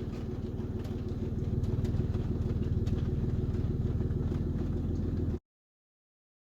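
A car's engine running steadily, heard from inside the cabin as an even low hum. About five seconds in, the sound cuts out abruptly to dead silence for about a second.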